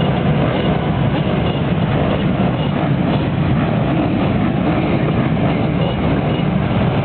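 A whole field of motocross bikes running together on the start line in a dense, steady engine drone, the riders holding their engines ready before the starting gate drops.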